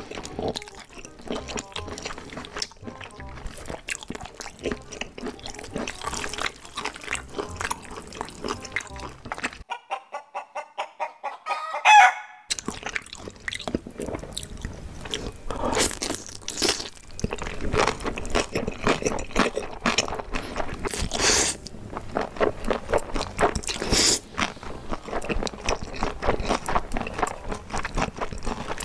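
Close-miked eating sounds: noodles in a thick spicy sauce being slurped and chewed along with octopus, a run of wet smacks and clicks. About twelve seconds in, a brief loud pitched sound cuts in, the loudest moment.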